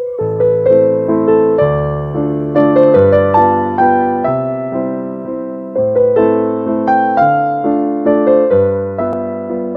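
Background music: a gentle tune of struck notes over chords, each note fading after it is played.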